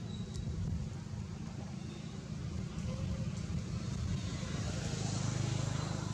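Steady low outdoor rumble with an even hiss above it, both swelling about five seconds in.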